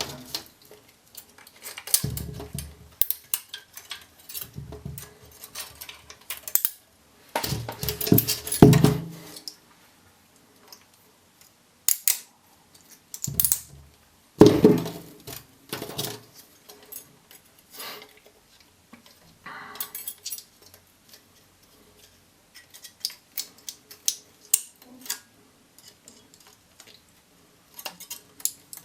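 Metal connecting strips being worked loose and pulled off 18650 lithium-ion cells by hand, with irregular clicks, clinks and short scraping rattles; the loudest bursts come about eight and fourteen seconds in.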